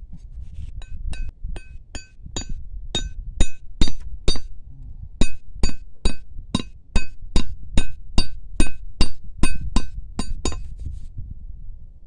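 Machete blade striking a small wooden stake over and over to set it into the ground, each blow giving a sharp metallic ring. About two to three blows a second, with a short pause about halfway through.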